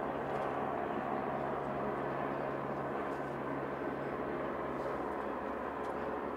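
Steady engine drone with a constant low hum.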